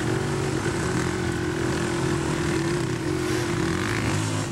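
Dirt bike engine running close by at low speed, a steady buzzing note that rises and dips slightly in pitch.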